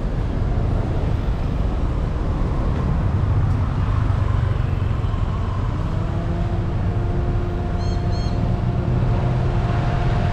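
Car driving in city traffic: steady engine and road noise, with a steady hum joining about six seconds in and two short high chirps just before eight seconds.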